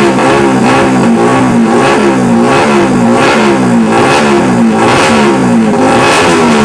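Yamaha R15 single-cylinder four-stroke engine, built with a re-profiled camshaft, ported head and new cylinder block, revved in quick repeated throttle blips through an aftermarket free-flow exhaust, rising and falling about one and a half times a second. The sound is loud throughout.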